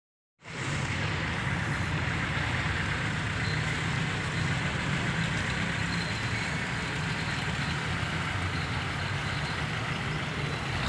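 A motor vehicle engine running steadily with outdoor street noise, cutting in abruptly about half a second in.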